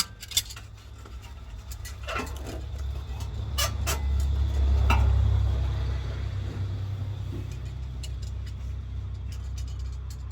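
A low rumble of a vehicle that swells to a peak about five seconds in and slowly fades, with a few sharp metallic clinks from the cat clamp's metal parts being handled.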